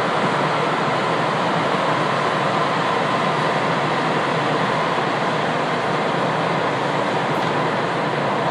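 Steady interior noise of a JR West 227 series electric train standing at the platform before departure: an even hiss with a faint steady hum from its onboard equipment.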